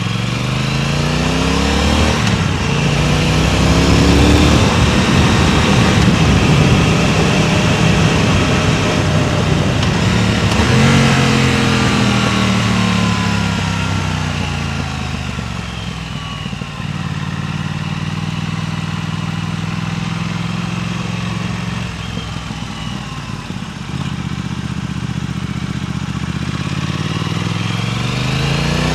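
Motorcycle engine accelerating through the gears, its pitch climbing and dropping back at each shift, then holding steady at cruise for a while before rising again near the end. Wind rushes over the microphone throughout.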